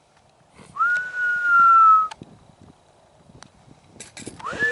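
A long whistled note, jumping up and then sliding slowly down in pitch for about a second; a second, higher whistled note begins near the end.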